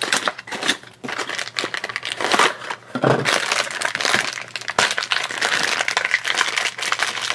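Crinkling and crackling of a foil blind bag being handled and torn open by hand, after the small cardboard blind box around it is pulled apart.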